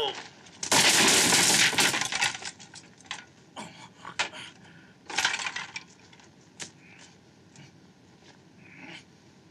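Crash of splintering wood as a body is thrown through a wooden structure, a loud film fight sound effect lasting about a second and a half, followed by a few scattered clatters of falling debris.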